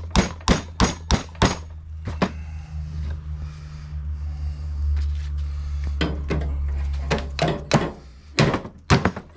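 Hammer blows, about three a second, on a socket driving the inner steel sleeve out of a split upper control arm bushing. One run of blows, a pause filled by a steady low hum, then a second run of blows near the end.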